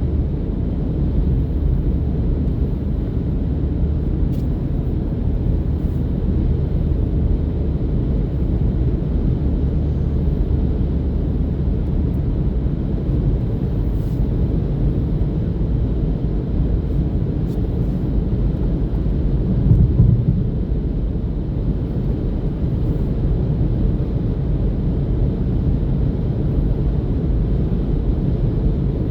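Steady low rumble, with a slight swell about twenty seconds in and no breathing rhythm.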